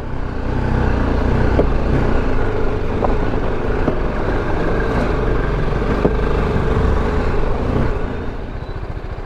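BMW G310GS single-cylinder motorcycle engine running at low speed on a rough, muddy dirt track, mixed with steady road and wind noise and a few sharp knocks, and easing slightly near the end.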